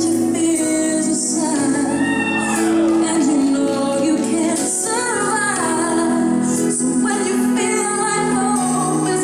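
Music with a woman singing a melody over sustained accompaniment.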